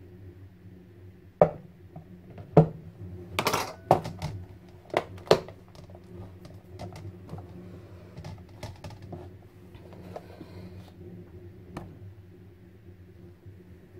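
A hard clear plastic container clicking and knocking as it is handled and pricked with a fork, with the sharpest knocks in the first five seconds and lighter clicks after. Under them runs the steady hum of a kitchen cooker hood fan.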